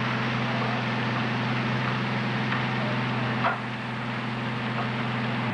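Steady low drone of fire apparatus engines running at the fireground, under a constant hiss. There is a short sharp knock about three and a half seconds in, after which the sound is a little quieter.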